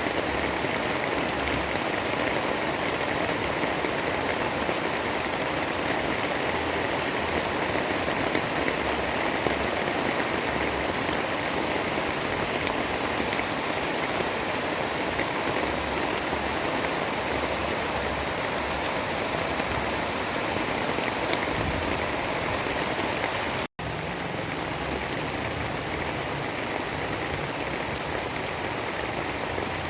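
Steady, even rain noise. It drops out for a split second about three-quarters of the way through and comes back slightly quieter.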